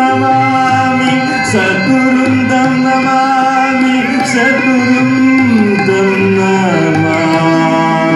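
Male vocalist singing a Carnatic-style melody into a microphone, with long held notes that slide between pitches, over a steady drone, violin accompaniment and soft low drum strokes.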